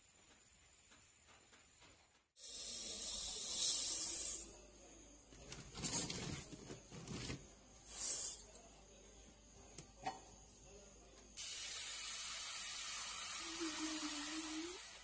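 Dry rice poured into a stainless steel pot, heard as hissing rushes in several pours. Then tap water sprays through a faucet nozzle into the pot of rice, a steady hiss over the last few seconds.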